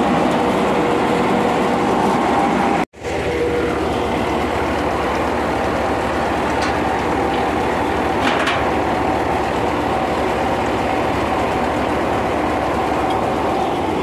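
Tractor-driven paddy thresher running steadily, its drum and fans making a loud, continuous mechanical hum with a couple of held tones, together with the Mahindra Arjun tractor engine that powers it. The sound cuts out for an instant about three seconds in, then carries on unchanged.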